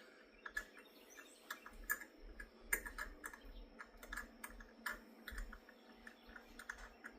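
Hand tap being turned into a threaded hole in an aluminum block, re-cutting cross-threaded threads: a string of small, irregular clicks and ticks.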